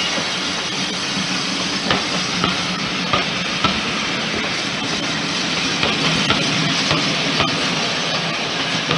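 Steam-hauled passenger train rolling past, its coach wheels clicking over the rail joints over a steady hiss.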